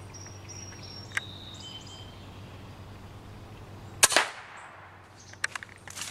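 A single shot from a Hatsan BullBoss pre-charged pneumatic air rifle about four seconds in: one sharp crack with a brief ring after it. A few quieter sharp clicks follow about a second and a half later.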